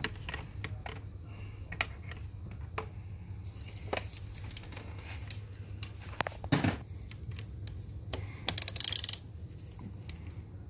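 Metal hand tools clinking as a 32mm socket and swivel extension are fitted onto the oil filter housing cap, with a sharper knock and then a short burst of rapid ratchet clicks about two-thirds through.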